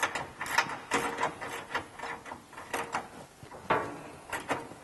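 Hand socket ratchet clicking in short, irregular runs of strokes as a fuel-tank mounting bolt on a Jeep frame is turned.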